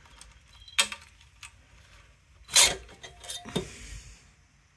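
Hard metal clinks and knocks from engine parts and tools being handled: a sharp knock about a second in, the loudest clunk just past halfway, then a few quick clicks.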